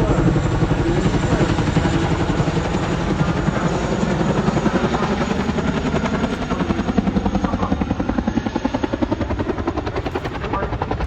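Boeing CH-47 Chinook tandem-rotor helicopter flying a display, its rotor blades beating in a fast, steady chop that eases slightly near the end.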